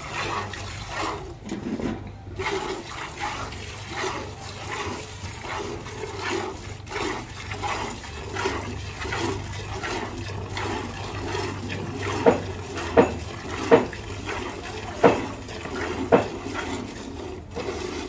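Milk squirting into a steel pail as a cow is milked by hand: a rhythmic swishing hiss with each pull of the teat, over a steady low hum. About two-thirds of the way through, five sharp knocks stand out louder than the rest.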